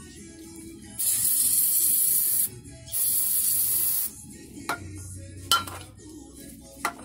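An aerosol cleaner can spraying in two long hissing bursts, about a second and a half and then a second long, cleaning around the oil filter housing. A few sharp clicks follow in the second half.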